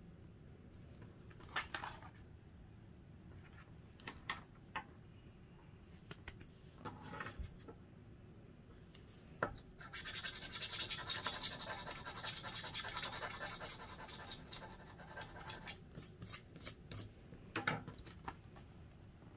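Scratch-off lottery ticket scraped with a flat metal tool: a few short scrapes and taps, then one continuous scrape of about six seconds starting about ten seconds in, then more short scrapes near the end.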